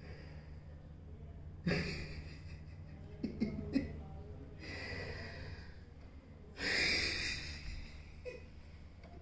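A man breathing heavily and unevenly: a sharp gasp about two seconds in, then two long breaths, the last the loudest. Under them runs a steady low hum.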